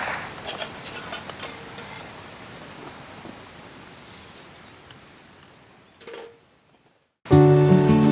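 A low hiss with scattered small clicks and crackles, fading out steadily. A brief silence follows, then gentle music starts near the end.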